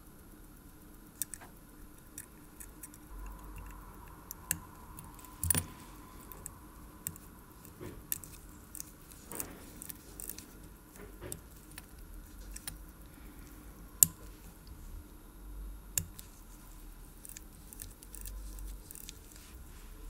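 Scattered small metallic clicks and ticks of a watchmaker's screwdriver and tiny case screws against a steel watch case and movement, with a few sharper clicks among them.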